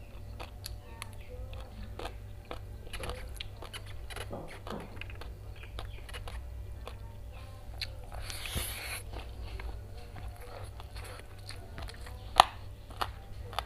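Close-miked mouth sounds of a person chewing and eating by hand: a run of short wet clicks and smacks, a brief crunchy rustle about eight and a half seconds in, and one sharp click near the end, over a low steady hum.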